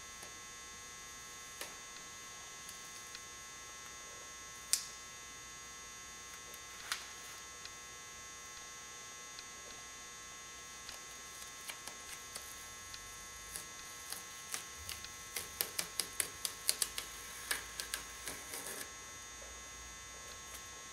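Painter's tape being peeled off a truck's rocker panel from along a bead of fresh seam sealer: scattered faint crackles, then a quick run of sharp ticks in the second half. A steady electrical hum runs underneath.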